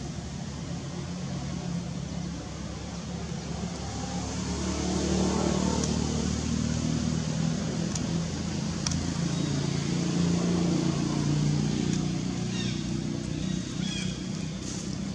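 A low motor hum, pitched and steady, that swells up twice and eases off again. A few faint high chirps come near the end.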